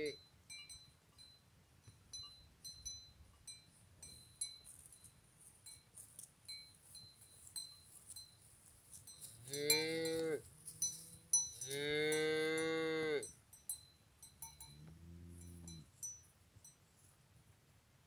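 Highland cattle mooing: one moo about ten seconds in, a longer, louder one a second or so later, and a fainter one a few seconds after that.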